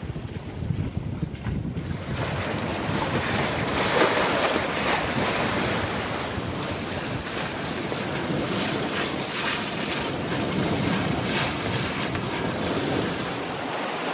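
Wind buffeting the microphone and water rushing past the hull of a sailing yacht running fast, about 7.6 knots in a 16 to 18 knot breeze. A steady rush with gusty buffeting, turning hissier from about two seconds in.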